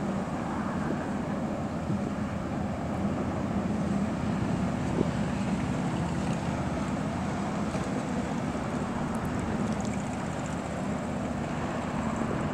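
Boat engine running steadily as a low drone, mixed with wind on the microphone.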